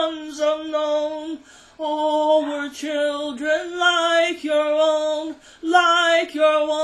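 A solo voice singing unaccompanied, holding long, slowly drawn-out notes with short pauses for breath between the phrases.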